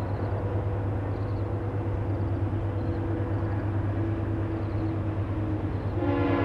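Approaching diesel locomotive running with a steady low rumble between horn blasts. Its multi-chime air horn sounds again, loud, about six seconds in.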